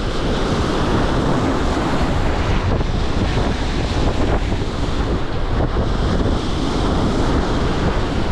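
Strong wind buffeting the microphone in a steady low rumble, over rough lake waves washing against a fishing boat.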